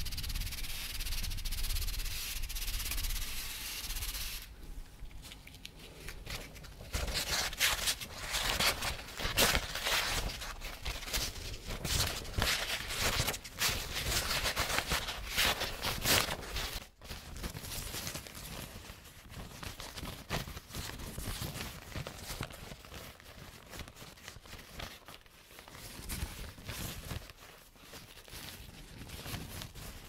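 Soft paper from a large roll handled close to the microphone. A steady hiss at first, then dense scratchy rubbing and rustling that eases to quieter crinkling toward the end.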